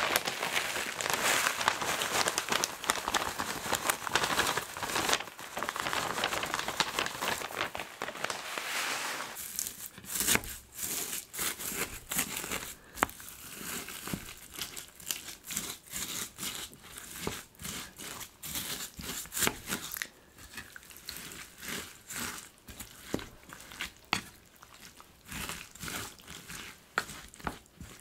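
Dry seasoned laver flakes (gim-jaban) crinkling and crackling for about nine seconds as they are heaped onto the stew. After that comes a wooden spoon mixing rice, egg and laver in a metal pot, with scattered clicks, scrapes and soft crackles.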